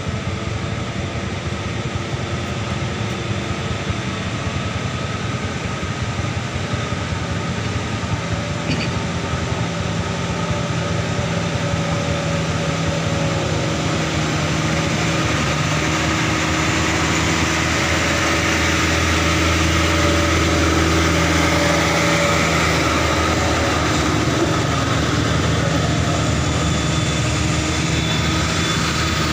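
Diesel truck engines running steadily, growing louder over the second half as a water tanker truck comes up close.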